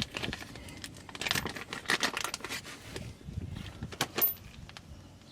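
Small metal parts clinking and rattling as bolts are handled and fitted on a differential cover: a string of light clicks and jingles, with one sharper ringing clink about four seconds in.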